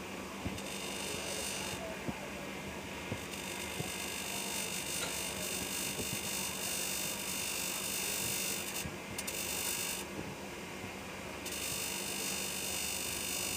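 Electric bench grinder running with a steady hum while a steel scissor blade is pressed against its abrasive wheel. A high grinding hiss comes and goes several times as the blade touches the wheel and is lifted off.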